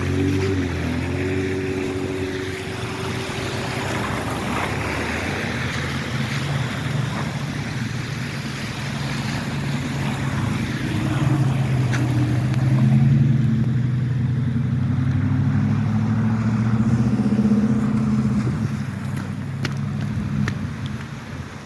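Street traffic: motor vehicle engines running and passing, one deep engine hum swelling louder near the middle and fading toward the end.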